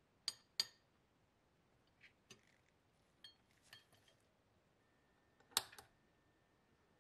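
Metal bottle cap in an alligator clip clinking against the rim of a glass jar as it is lowered into nickel-plating solution: two sharp clinks within the first second, then a few lighter taps. A louder click comes near the end, with a faint steady high whine in the last seconds.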